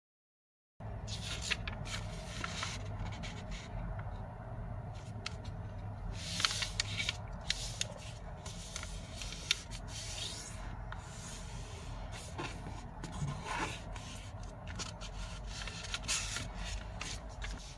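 A square sheet of origami paper being handled and folded, with irregular crisp rustles and scrapes as fingers slide over the paper and press along the crease. A steady low hum sits underneath, and the sound starts after a moment of total silence.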